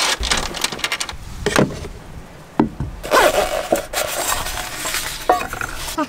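Knocks, clinks and rustling from things being handled: a window curtain being moved and small objects picked up off a wooden shelf, in short uneven bursts.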